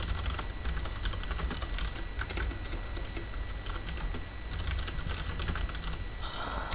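Computer keyboard typing: a run of quick, irregular keystrokes as a line of text is typed.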